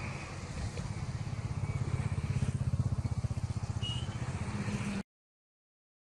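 A low, rapidly pulsing rumble with a hiss above it, which cuts off abruptly about five seconds in, leaving dead silence.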